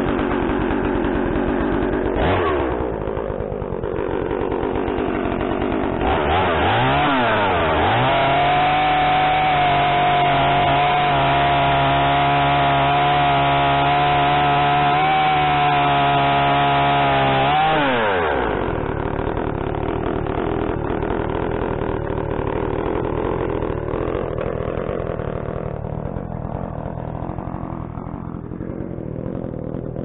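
Blue Max gas chainsaw idling, then throttled up about six seconds in and held at full revs for about ten seconds while cutting through the end of a timber column, before dropping back to idle.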